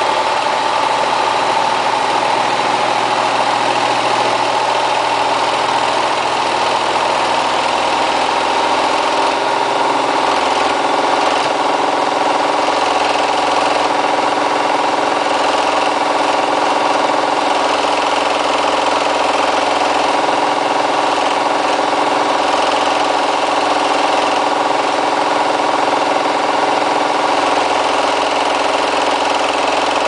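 Hotpoint Ultima WT960 front-loading washing machine spinning its drum at about 1400 rpm: a steady, loud motor whine and drum rumble. The load of three pairs of trousers is spinning unbalanced.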